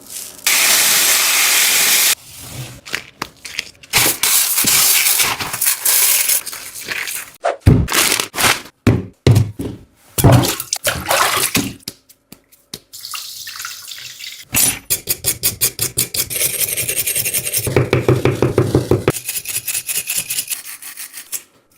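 Soft PU foam squishy toys being squeezed and handled in a string of short close-miked clips: hissing, crackling and squishing handling noises that change from clip to clip. In the last third there is a fast, regular run of about five squeezes or taps a second.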